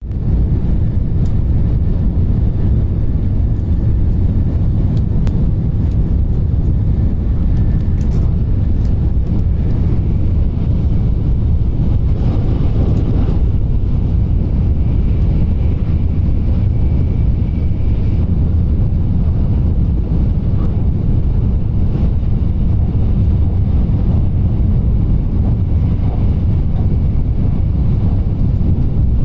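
Shinkansen bullet train running at speed, heard from inside the passenger cabin as a steady low rumble.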